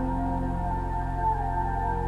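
Background music: slow ambient new-age music with long held tones over a steady low drone.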